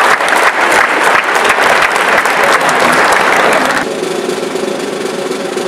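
Large audience applauding in a school auditorium, a dense mass of clapping. About four seconds in it breaks off abruptly to quieter crowd noise.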